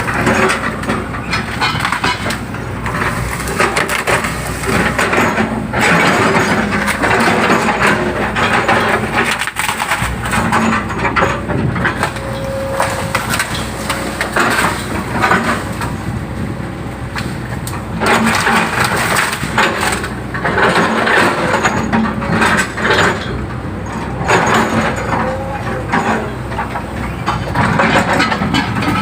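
Excavator's diesel engine running steadily under load while digging a ditch, with repeated surges of crunching, cracking noise as the bucket tears into the ground.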